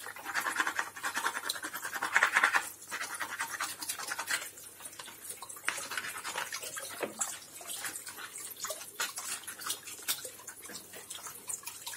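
Green-lipped mussel shells clicking and scraping against one another and the colander as wet gloved hands handle them to pull off the beards, in a rapid, irregular patter of small clicks and rasps over a trickling tap.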